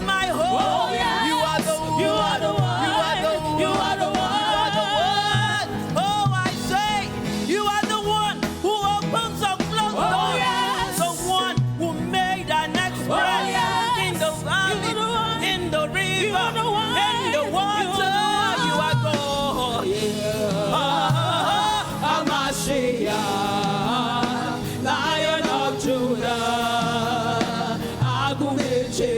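Live gospel worship music: singing over a band with a steady beat, with no clear words.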